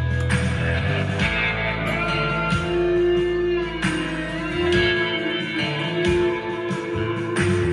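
Electric guitar, a Harley Benton SC-DLX played through a Blackstar ID15 TVP amplifier. Chords and notes are struck every second or so and left to ring.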